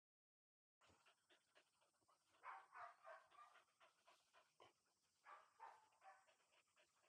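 Labrador retriever puppy panting quickly and faintly, starting about a second in, with a few louder breathy bursts.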